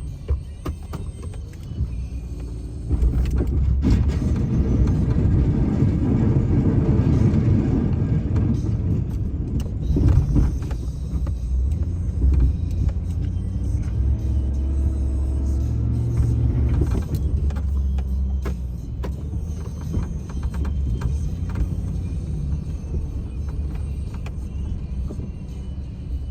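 A snow-plowing vehicle's engine working as it pushes snow. The low rumble grows louder about three seconds in and eases back after about seventeen seconds.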